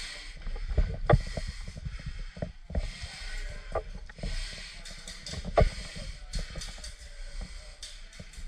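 Irregular mechanical clicks and knocks, a few sharper ones standing out, over a hiss that swells and fades about every second and a half.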